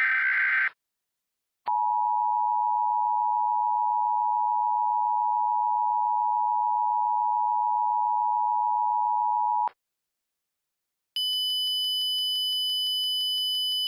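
The tail of an Emergency Alert System SAME data burst, then the two-tone EAS attention signal (853 and 960 Hz) held steady for about eight seconds before it cuts off. After a short gap, a higher-pitched steady alert tone with rapid even ticking, about six a second, runs for the last few seconds.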